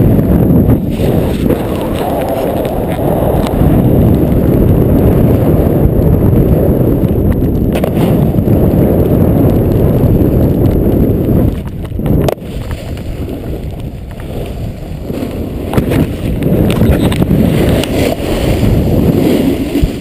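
Wind rushing over a GoPro's microphone as a snowboarder rides downhill, with the board scraping over packed snow. The rush drops off briefly about halfway through, then builds again.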